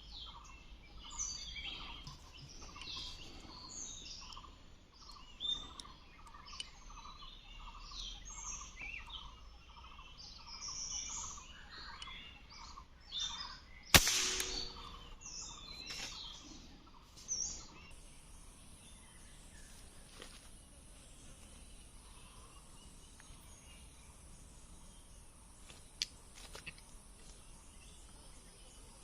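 Many birds chirping and calling, one of them repeating the same note about twice a second, with a single sharp crack about halfway through. After that the birds thin out and a steady high insect drone sets in.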